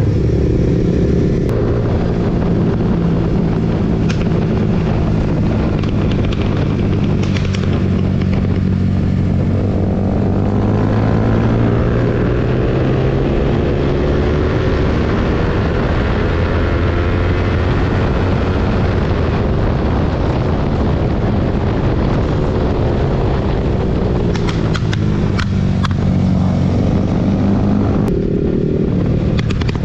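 Motorcycle engine running on the move, its pitch rising and falling as the revs change, with wind rush over it and a few short clicks near the end.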